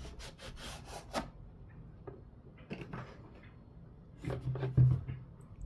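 Hard plastic tool case being handled: light clicks and rubbing, then a few louder knocks about four to five seconds in.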